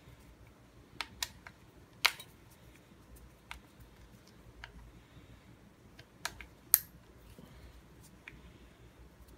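Scattered sharp clicks and taps of a T20 Torx screwdriver working the screws out of a Rohloff hub's axle plate. About a dozen irregular clicks, the loudest about two seconds in and again near seven seconds.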